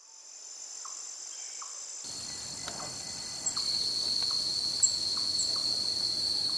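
Jungle insects droning in a steady high-pitched chorus that fades in from silence. A second, lower insect tone joins about two seconds in and grows louder, with a few faint short chirps scattered through it.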